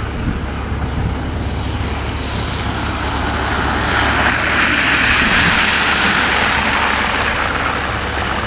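Vehicle driving on a snow-covered road: a steady low road-and-engine drone, with a broad hiss that swells about halfway through and eases near the end.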